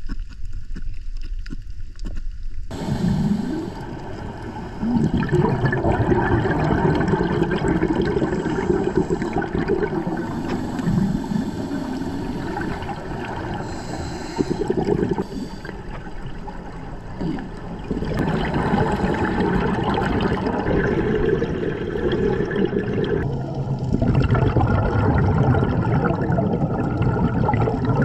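Muffled underwater sound of scuba exhalation bubbles gurgling. It comes in long loud stretches with a few quieter breaks between them, starting sharply a few seconds in.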